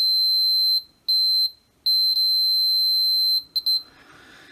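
Digital multimeter's continuity beeper sounding a pure high beep as the probes touch a shorted MOSFET on the circuit board. The beep comes in three stretches broken by short gaps, the last about a second and a half long, then a few quick chirps as the probes lose contact, and it stops.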